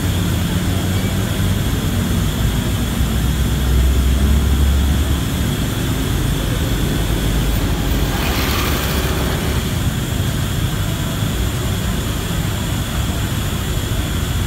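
Steady low rumble of an idling bus diesel engine, swelling a little about four seconds in. About eight seconds in, a motorcycle passes close by with a brief rush of noise.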